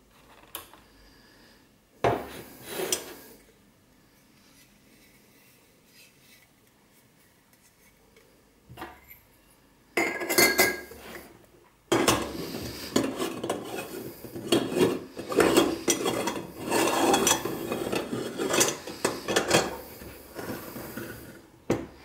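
Parts of a Kela Latina stainless-steel moka pot clinking against each other a few times, then about ten seconds of metal scraping and rubbing as the upper chamber is screwed onto the boiler.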